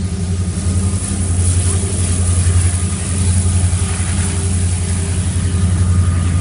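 Steady low rumble of a passing BNSF coal train, with a deep even hum and a faint high whine.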